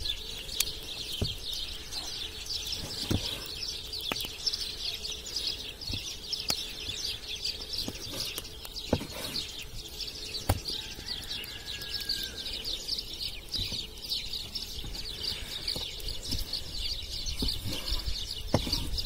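Outdoor birds chirping steadily in a dense chorus, with a few sharp knocks of a large knife chopping beef on a wooden cutting board.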